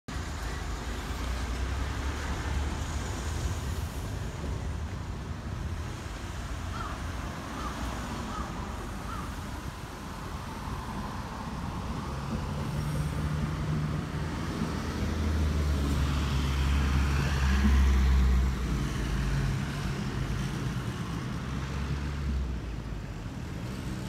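Street traffic noise. A heavy container truck drives past near the start, and a steady low engine rumble swells to its loudest a little past the middle, then eases off.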